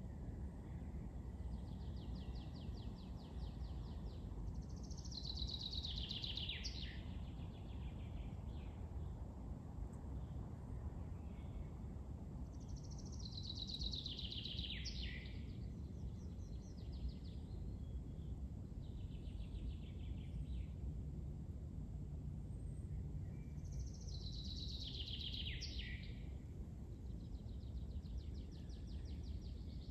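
Forest birdsong: a songbird repeats a short song that falls in pitch three times, about ten seconds apart, with faster high trills between the songs, over a steady low rumble.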